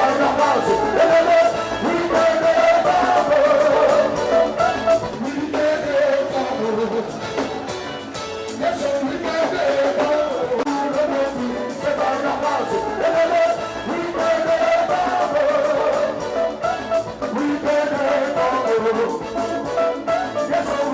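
Background music with a singing voice and a steady beat.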